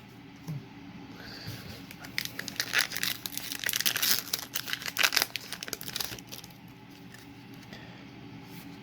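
Foil wrapper of a Yu-Gi-Oh booster pack crinkling and tearing open: a dense crackling rustle that builds about two seconds in and dies away about four seconds later.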